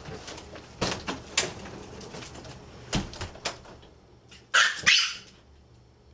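A door shuts with a knock about three seconds in. Near the end, a Pomeranian left alone gives two short barks in quick succession toward the closed door.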